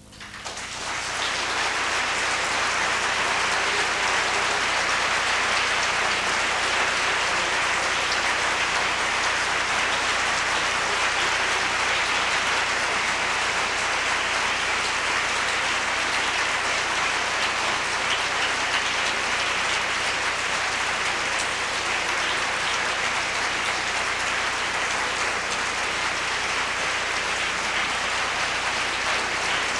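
Audience applauding. It breaks out all at once and builds within about two seconds to a steady, dense clapping that continues throughout.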